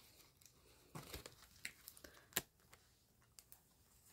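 Faint, scattered rustling and soft clicks of paper dollar bills and paper envelopes being handled in a cash-stuffing binder, the sharpest click about two and a half seconds in.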